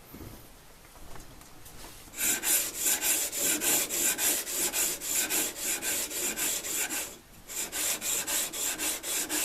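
A steel blade being rubbed back and forth on abrasive sandpaper to sharpen it, in quick even strokes of two to three a second. The strokes start about two seconds in and pause briefly near seven seconds.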